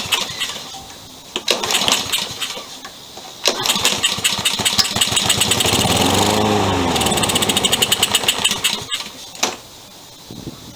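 Honda GCV160 engine on a Toro walk-behind mower pull-started on a squirt of carb cleaner, its tank dry. A brief burst about a second and a half in, then it catches about two seconds later and runs for about five seconds before cutting out suddenly as the cleaner burns off.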